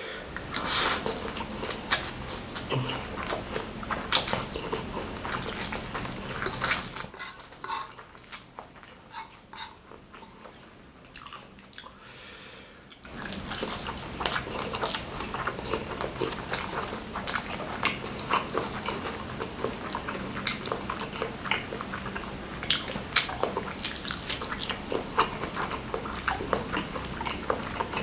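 Close-miked chewing and biting of spicy instant noodles, a dense run of small wet clicks. The eating eases off for several seconds about seven seconds in, then picks up again about thirteen seconds in.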